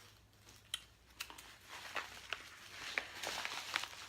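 Paper and plastic packaging rustling and crinkling as small cards and stickers are handled, with several sharp clicks and snaps.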